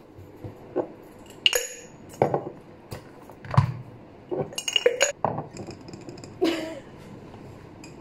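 Ice cubes being pressed out of a silicone ice-cube tray and dropped into an empty glass mason jar. Each cube hits the glass with a sharp clink or knock, about nine times at irregular intervals.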